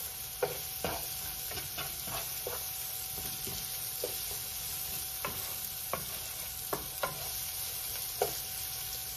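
Onion and garlic frying in oil in a frying pan, a steady sizzle, while a wooden spatula stirs them, tapping against the pan about a dozen times at irregular intervals.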